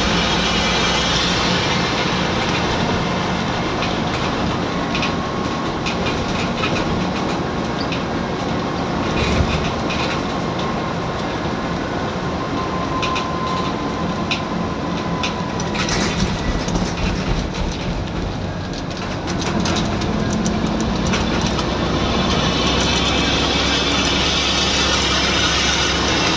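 Scania N94UD East Lancs OmniDekka double-decker bus under way, heard from the upper deck: the engine runs with steady road noise and scattered rattles from the body. About two-thirds of the way through the engine note drops away briefly, then comes back louder and steadier.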